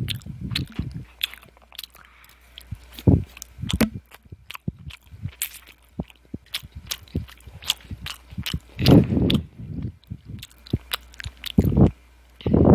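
Close-up mouth sounds of someone chewing chilled cooked pasta with the mouth open: many quick, wet smacking clicks with a few heavier bursts of chewing.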